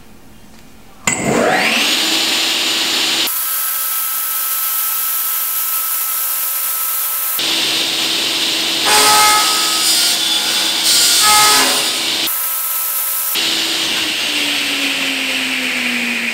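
Sliding panel saw's motor and blade starting up, with a whine that rises quickly in pitch about a second in, then running steadily at full speed. Near the end it coasts down with a slowly falling hum. The sound jumps abruptly several times between takes.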